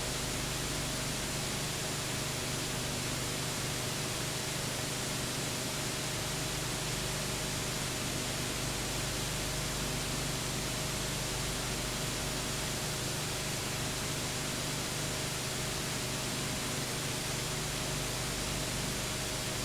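Steady hiss with a low, even hum and no other sound: the background noise of a transfer of silent home-movie film.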